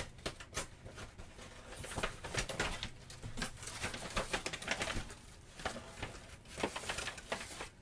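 Paper and plastic packaging rustling and crinkling in quick irregular crackles as a parcel is opened by hand; it stops suddenly near the end.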